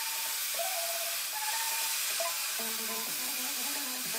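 A steady, loud hiss of noise laid over faint music; lower voice- or instrument-like tones come in about two and a half seconds in.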